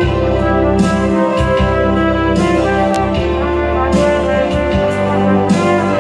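A trumpet plays a held, lyrical melody over a backing track with a sustained bass line and a regular percussion hit about every second and a half.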